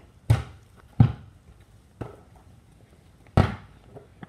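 A basketball bouncing on the driveway: four separate hard thuds, the third fainter.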